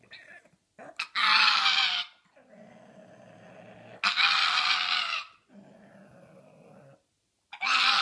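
A small flat-faced dog howling with its head thrown back: three drawn-out howls of about a second each, each sliding a little down in pitch, with fainter low sounds between them.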